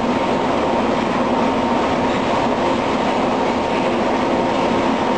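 Polysius vertical roller mill running: a loud, steady mechanical roar of grinding with a constant hum near 1 kHz and several lower hums beneath it.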